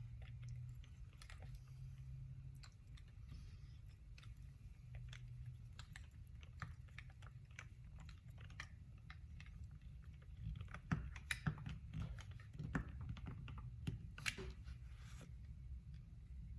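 Scattered small clicks and taps of a hair clipper's metal and plastic parts being handled and fitted during reassembly, busier and louder about eleven to fifteen seconds in, over a low steady hum.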